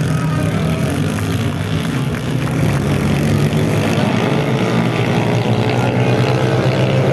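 Racing car engine running at a steady speed, a loud low drone that holds its pitch.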